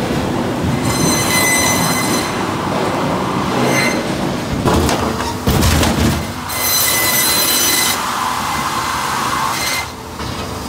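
Pezzolato TLA 15 firewood processor running, a steady clatter of conveyors and hydraulics. Its 1500 mm disc saw gives a high-pitched squealing whine twice, about a second in and again near seven seconds, as it cuts through logs. A heavy knock comes at around six seconds.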